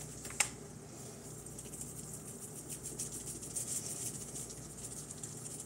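Crappie and bluegill fillets frying in butter in a pan, a steady fine crackle, with a single sharp click about half a second in.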